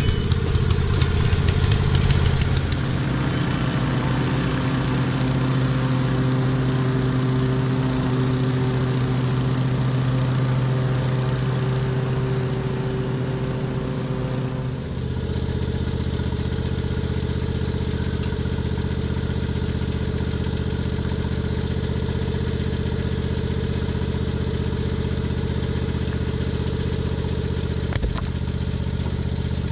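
Small gasoline engine of a Snapper Pro 48 walk-behind mower, with a Trac Vac leaf vacuum mounted on it, running steadily. Its tone shifts about halfway through, and there is a single short knock near the end.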